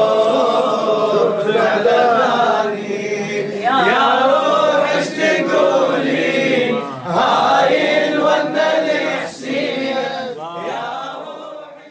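A boy's and a man's voices chanting an Arabic Shia religious poem (qasida) unaccompanied, in long, bending vocal lines; the sound fades out at the very end.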